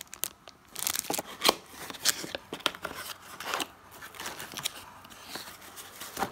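Clear plastic bag and cardboard packaging being handled: irregular crinkling and rustling with sharp taps, the loudest about a second and a half in.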